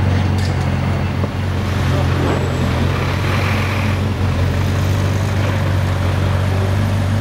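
McLaren 720S Mansory's twin-turbo V8 idling steadily, a low, even hum with no revving.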